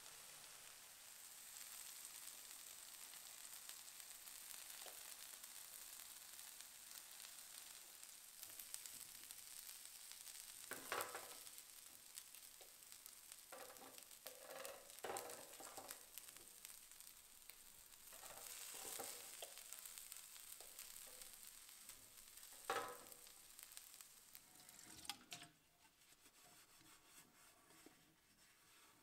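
Chicken pieces and bacon-wrapped sausages sizzling steadily on the non-stick grill plate of a Silvercrest PD-8919 raclette grill. Now and then kitchen tongs clack and scrape on the plate as pieces are lifted off. The sizzle cuts off suddenly near the end.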